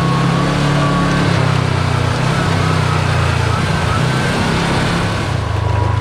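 Kawasaki Teryx KRX4 1000 side-by-side's parallel-twin engine running steadily while driving, its note shifting slightly a few times, with a thin high whine above the drone.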